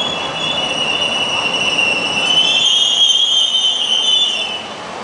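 Metro Rail light-rail train (AnsaldoBreda P2550, car 710) moving past close by, its wheels squealing on the rails over the rumble of the cars. The high squeal holds several tones, swells to its loudest around the middle and dies away near the end.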